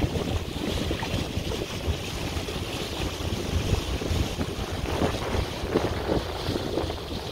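Wind buffeting the microphone in a steady low rumble, over the wash of choppy harbour water.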